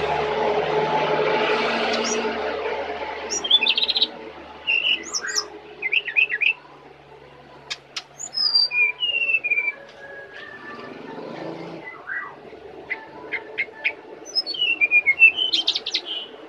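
Brown-chested jungle flycatcher singing: short chirps and clear whistled notes in scattered phrases, some sliding down in pitch, with a quick run of notes near the end. A steady low hum fades out over the first three seconds.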